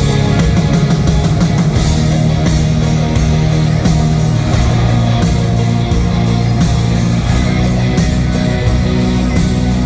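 Live band playing the instrumental intro of a country-rock song, with electric guitar over held bass notes and a steady beat.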